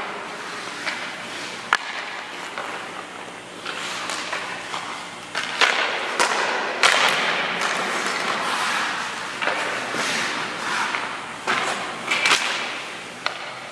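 Ice skate blades scraping and carving across the ice in long hissing strokes, with several sharp knocks of hockey sticks and pucks.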